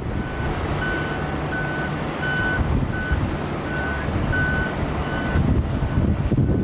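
A vehicle reversing alarm beeps at one high pitch, over and over, roughly every half second to a second. Under it runs a steady low rumble of jet engines.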